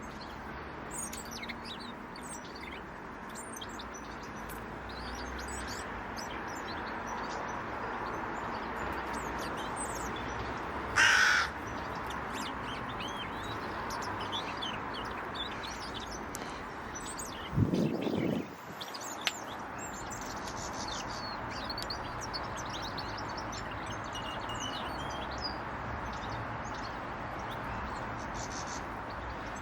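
Small birds chirping and calling over a steady outdoor background hum. A single loud, harsh, brief call cuts in partway through, and a loud low thud comes several seconds later.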